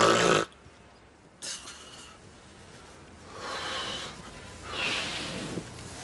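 A woman snoring heavily in bed. A loud snort comes right at the start and a shorter one about a second and a half in, then two longer snoring breaths follow near the end.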